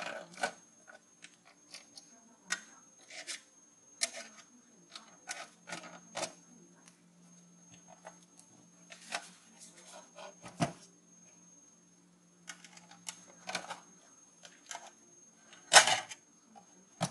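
Thin screwdriver prying at the sheet-metal cover of an ASUS CD-ROM drive: irregular metallic clicks, taps and short scrapes as the cover is worked loose, the loudest click near the end.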